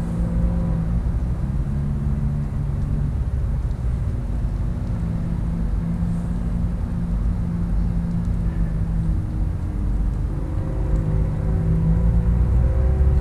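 Diesel locomotives of an approaching freight train, still out of sight: a steady low rumble with droning engine tones that shift in pitch about ten seconds in, growing louder near the end.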